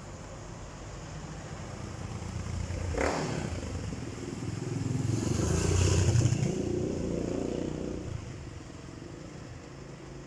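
Car traffic passing on a street: engine and tyre noise swells to its loudest about six seconds in as a car goes by, then fades. A sharp clatter sounds about three seconds in.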